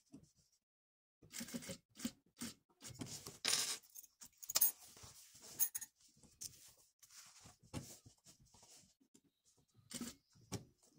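Faint, irregular rustles and light clicks of stiff denim being handled and shifted under a sewing machine's presser foot, in short scattered bursts with quiet gaps.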